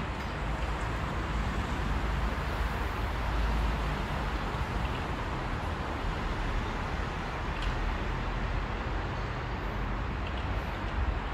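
Steady urban background noise: a low rumble of distant traffic.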